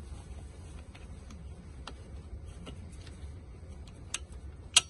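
Hard plastic adapter being handled and pressed onto a stroller frame: faint scattered clicks, then two sharp clicks near the end, the second the loudest, as the adapter snaps into place.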